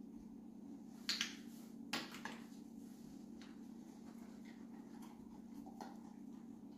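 Sharp clicks and knocks of a dog nosing and pawing a cardboard box on a hardwood floor, two louder ones about a second and two seconds in and fainter taps later, over a steady low hum.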